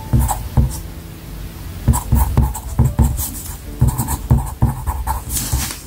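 Pencil writing on paper over a cutting mat: a quick run of short scratching strokes and light taps in several bursts as characters are written.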